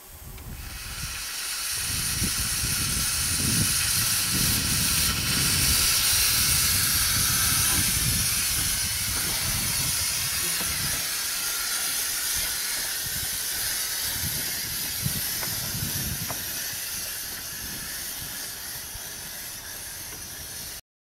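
Steam hissing from a Quarry Hunslet 0-4-0 saddle-tank steam locomotive, a steady rushing hiss that builds over the first few seconds, then slowly eases. An uneven low rumble runs underneath.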